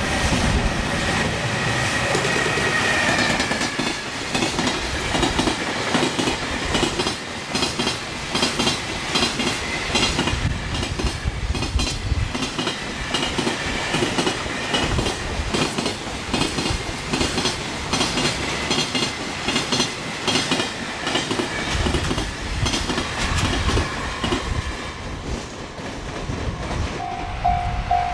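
Freight train wagons running over rail joints at speed: a continuous, rapid clickety-clack of wheel sets striking the joints. About a second before the end, a pulsing level-crossing warning bell starts ringing.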